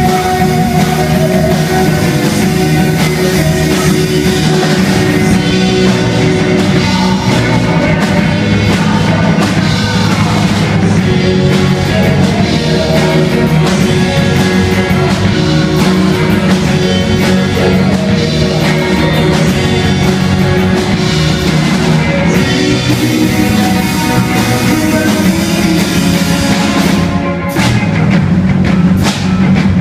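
Live rock band playing loud amplified electric guitars over a drum kit, with a run of sharp drum hits near the end.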